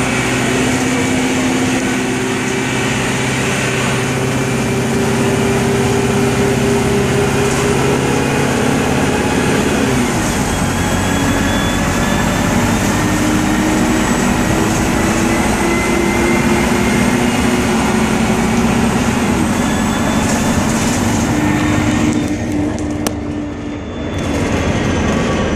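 Gillig Phantom transit bus under way, heard from inside: a steady drone with whining tones that drop in pitch about ten seconds in, then climb slowly and fall again near the end.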